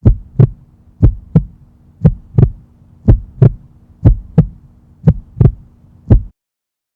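Heartbeat sound: paired lub-dub thumps about once a second over a low steady hum, six double beats and a final single one, cutting off abruptly near the end.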